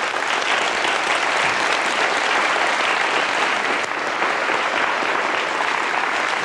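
Studio audience applauding, a dense steady clapping that holds at an even level.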